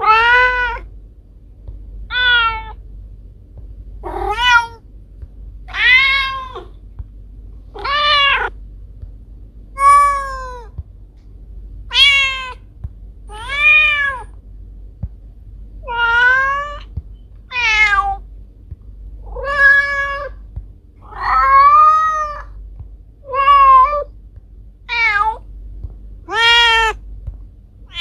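Domestic cat meowing over and over, one drawn-out meow about every two seconds, each rising and falling in pitch, over a faint low hum.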